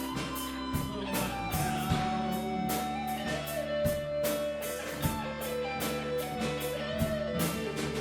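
Rock band music: guitars over a drum kit's steady beat, with a melody of long held notes stepping down in pitch.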